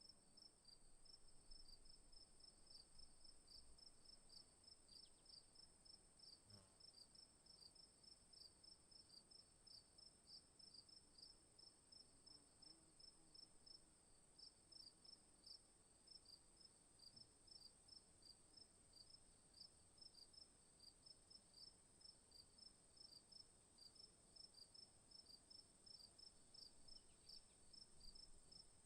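Faint chorus of chirping insects: a steady high-pitched trill with rapid, evenly repeating chirps just below it.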